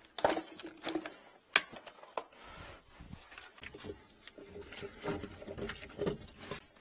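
Drain-cleaning cable and hose being handled and fed into a sink drain pipe: a few sharp clicks and knocks in the first two seconds, then a softer, uneven rattling.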